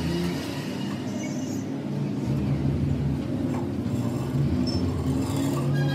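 Metal lathe running with a steady low mechanical hum.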